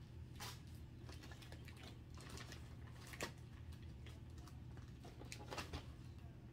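Faint, scattered clicks and light rustles of plastic packaging being handled as items are sorted and pulled out of a plastic mailer bag, over a steady low hum.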